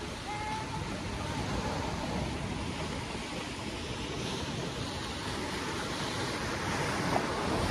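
Ocean surf and churning water at a river mouth: a steady rush, with wind on the microphone.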